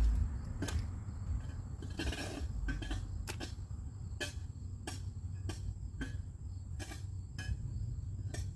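A series of sharp clicks repeating at a fairly even pace, about one every two-thirds of a second, over a steady low rumble.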